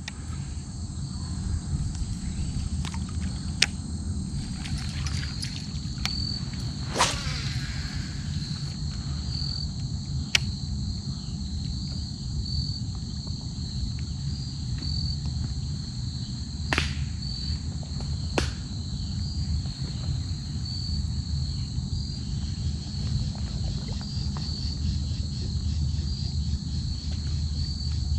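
Insects calling steadily in the marsh: a high, even chirping that pulses over and over, over a low rumble. A few sharp clicks stand out, the strongest about seven seconds in.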